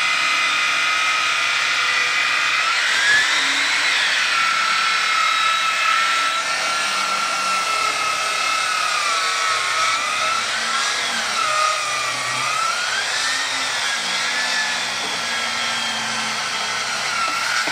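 Black & Decker circular saw running and cutting through wood. Its high whine wavers and dips in pitch as the blade takes load.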